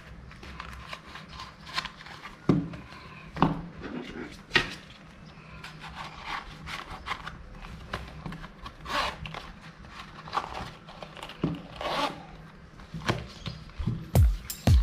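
A leather long wallet being handled: irregular rubbing and scraping of leather against leather and fingers, cards brushing in their slots, and a couple of soft knocks early on. Electronic music with a beat starts just before the end.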